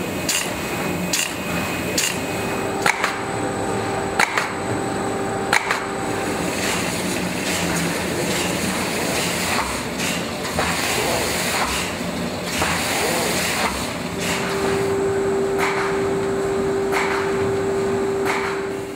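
Polythene bag-making machinery running: a steady mechanical din with sharp clacks repeating every second or so as the film is sealed and cut into bags. A steady hum joins for the last few seconds.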